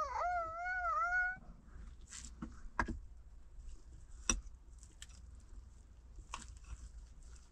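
An animal's wavering call, about a second and a half long, at the start, followed by a few scattered sharp knocks.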